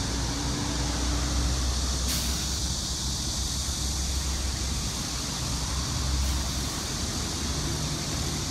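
Steady low rumble of vehicle noise with an even hiss above it. A brief, sharper hiss comes about two seconds in.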